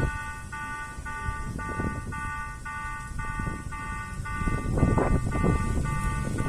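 Japanese railroad crossing warning bell on a miniature park crossing, ringing its repeated "kan-kan" electronic chime about twice a second without a break, over a low rumbling background noise.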